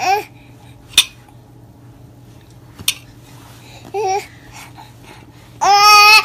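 Baby fussing and crying in short whining bursts, wanting the food on the plate in front of it: one brief cry about four seconds in and a longer one near the end. Two sharp clicks sound about one and three seconds in.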